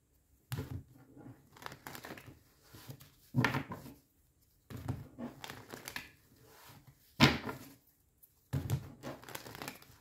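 Tarot cards being handled and spread on a table: a few irregular papery rustles and soft slaps, the loudest a sharp slap about two-thirds of the way through.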